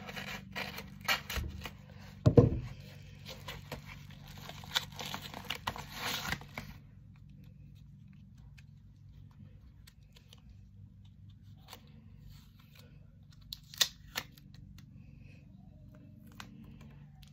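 Scissors cutting open a trading-card mail package, the packaging tearing and crinkling with scrapes and clicks, and a knock about two seconds in. After about six seconds this stops, leaving faint room tone with a few light ticks from handling the cards.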